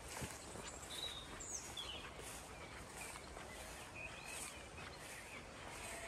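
Wild birds singing outdoors: several short whistled notes and chirps, one quick falling note about one and a half seconds in, over a soft steady haze with faint swishing of footsteps through long grass.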